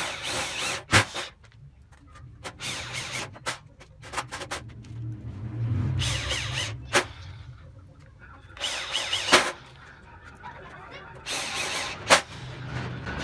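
Electric drill driving screws through sheet metal in short runs, about five bursts of whirring and grinding, several of them ending in a sharp snap as the screw bites home.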